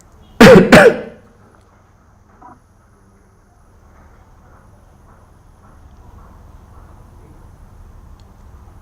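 A person's voice: two short, loud vocal bursts a third of a second apart about half a second in, followed by a faint steady low hum.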